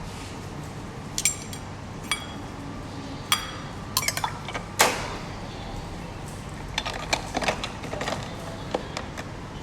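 Metal portafilter and filter basket of an espresso machine clinking and tapping as they are handled: a string of sharp, ringing clinks in two clusters, over a steady low hum.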